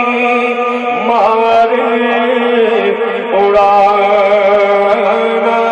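A man singing a naat in long, drawn-out notes with melodic turns and ornaments, amplified through a PA system.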